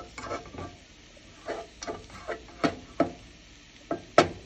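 Spatula scraping and knocking against a skillet while stirring scrambled eggs and chopped salami, in about nine irregular strokes with the loudest near the end.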